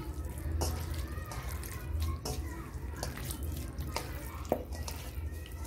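A hand squishing and kneading raw chicken pieces in a thick curd-and-spice marinade in a stainless steel bowl: wet squelches and irregular small clicks of meat and fingers against the metal, one sharper click about four and a half seconds in.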